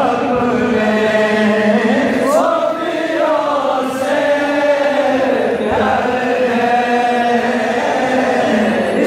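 A Sufi devotional anthem (tarana) chanted by a man's voice, with many voices from the crowd chanting along.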